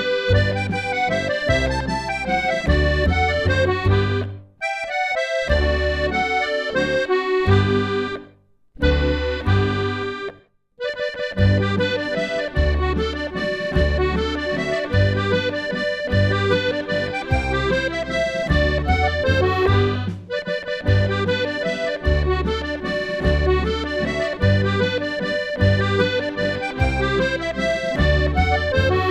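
Accordion playing a Ländler, a traditional Austrian folk dance tune: a melody over a regular bass-and-chord accompaniment, with three brief breaks, about four, eight and ten seconds in.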